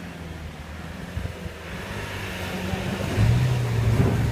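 Diesel 4x4 engine running steadily, then revved and louder about three seconds in as it takes the strain of a tow rope pulling a stalled vehicle out of a water hole.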